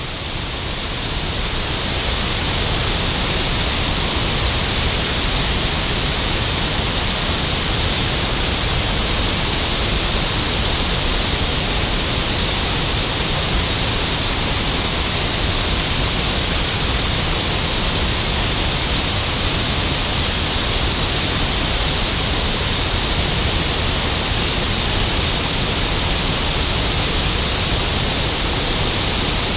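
Heavy flow of water pouring over a concrete dam spillway and crashing into the churning whitewater below: a steady, dense roar that fades in over the first couple of seconds.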